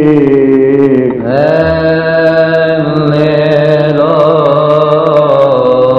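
Coptic Orthodox liturgical chant from the Kiahk praise: voices hold a long, drawn-out melismatic line, sliding to a new pitch about a second in. Light, regular high ticks run above the voices.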